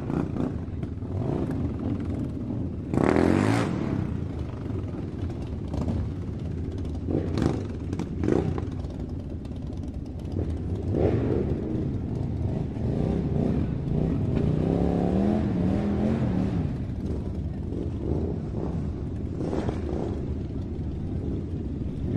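Toy RC rock crawler's electric motors and plastic gearboxes whirring and clattering as it drives over dirt and through grass, surging louder about three seconds in, with a whine that rises and falls in pitch a little past the middle.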